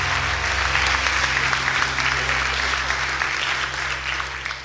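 Audience applauding over the held final chord of a live music recording, the sound fading out near the end.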